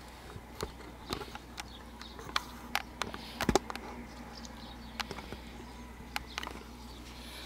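A scatter of irregular sharp clicks and small knocks, the loudest about three and a half seconds in.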